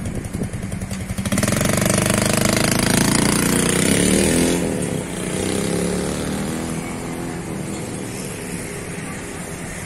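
A 2011 Yamaha Jupiter motorcycle's small four-stroke engine puttering at idle. About a second in it revs up as the bike pulls away, rising in pitch for a few seconds, then it eases off and fades steadily as the bike rides off.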